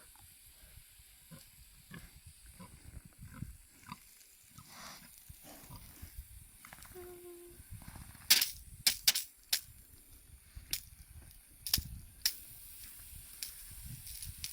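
Mangalitsa pigs grunting in low, irregular snatches, with a short pitched squeal-like call about seven seconds in. From about eight seconds in come a series of sharp, loud clicks or snaps.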